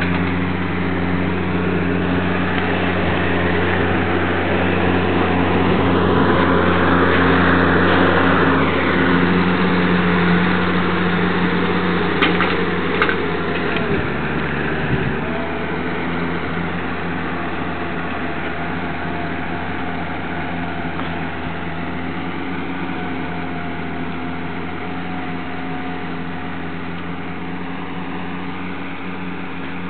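New Holland tractor's diesel engine running steadily while pulling a tillage implement across a field, a constant low drone. It is loudest in the first ten seconds or so, then slowly fades as the tractor draws away.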